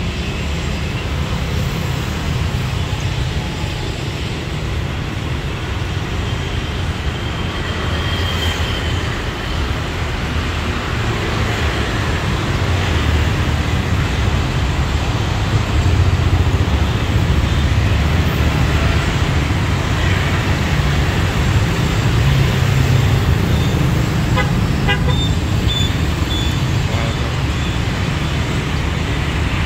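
Steady city street traffic of motorbikes and cars, a constant low rumble, with short vehicle horn toots, briefly about 8 seconds in and a quick run of beeps near the end.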